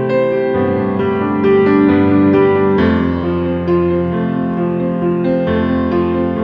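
Background music led by piano, with slow sustained notes changing every second or so.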